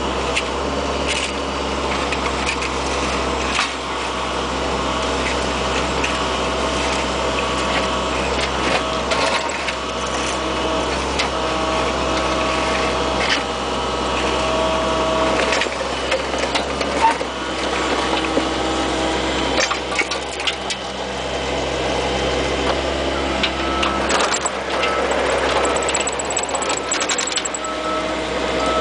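Bobcat 430 ZHS mini excavator's diesel engine running steadily as the machine works, its pitch shifting slightly at times, with scattered clicks and knocks over it.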